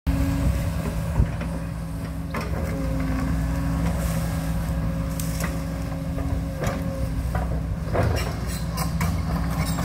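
Backhoe engine running steadily while it digs, with one sharp knock about a second in and several fainter clanks after it.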